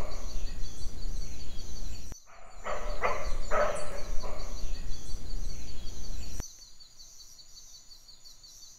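Jungle ambience: a run of short animal calls, about two a second, over a steady high-pitched chirring, with a brief drop-out about two seconds in. The whole bed falls away to a faint hiss about six seconds in.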